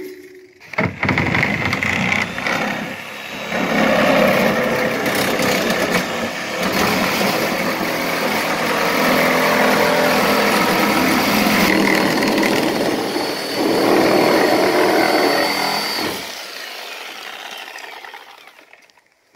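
Corded reciprocating saw cutting through the steel tube frame of an IBC tote's cage. It starts under a second in, runs with a couple of brief dips, and winds down near the end.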